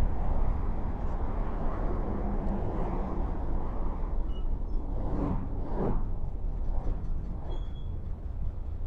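Wind buffeting and road rumble picked up by an action camera on a moving bicycle, steady throughout. Two short whooshes rise and fade about five and six seconds in.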